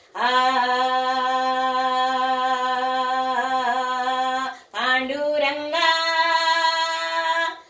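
A woman singing a Marathi devotional bhajan solo, holding two long sustained notes: the first lasts about four and a half seconds, and the second steps up in pitch about a second after it begins.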